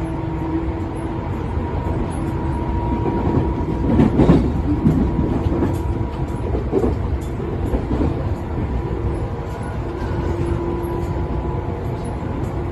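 Tobu 10000 series electric train running along the line: a steady rumble of wheels on rail with faint steady tones, and a louder clatter about four seconds in.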